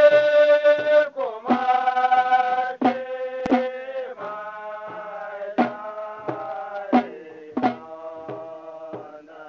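Hausa praise-song music: a long-held, wavering melodic line over scattered drum strikes about every second or so, with no words sung.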